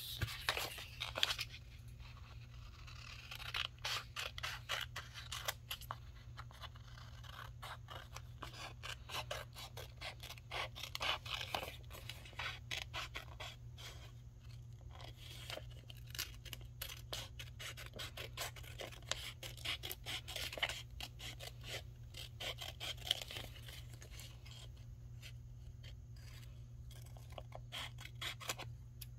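Scissors snipping around a printed paper label: runs of small, quick cuts, again and again, over a low steady hum.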